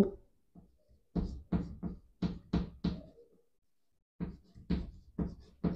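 Chalk tapping and scratching on a chalkboard as words are written: a run of about six short knocks starting about a second in, then a second run of four or five near the end.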